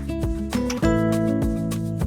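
Background music with a steady beat: guitar chords over regular drum hits, changing chord about every second.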